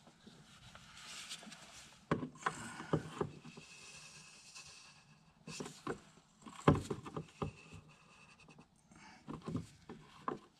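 Scattered clicks, knocks and rubbing from hand work with a plastic livestock drencher (drench gun) being used to push gear oil into a differential. The loudest knock comes about two-thirds of the way in.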